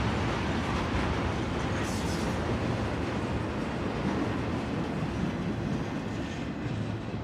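Steel wheels of a Union Pacific intermodal freight train's trailer-carrying flatcars rolling past on the rails. The steady rolling noise eases off as the last car goes by.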